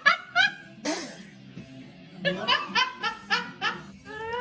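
Laughter in quick 'ha-ha' bursts, each dropping in pitch, in two runs with a pause between. A short sharp noisy burst comes about a second in.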